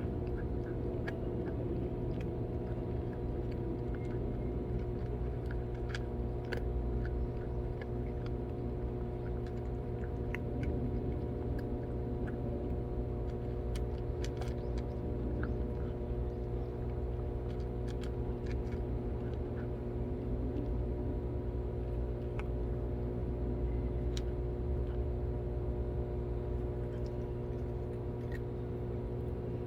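Several cats eating, with scattered small crunching clicks of chewing, over a steady low mechanical hum with several steady tones.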